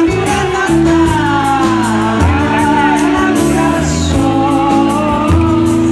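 Live band playing with a woman singing the lead: her sung melody wavers over electric guitar, bass guitar notes and a drum kit.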